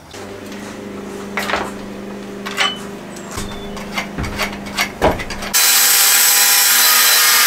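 Clicks and scrapes of a small hand tool being worked, over a low steady hum. About five and a half seconds in, a corded angle grinder abruptly starts grinding metal fittings off a steel van floor: a loud, steady grinding noise that drowns out everything else.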